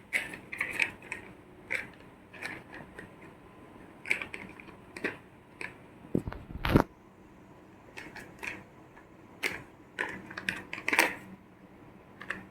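Plastic toy vehicles being handled and set down: irregular light clicks and taps, with one louder knock about two-thirds of the way through.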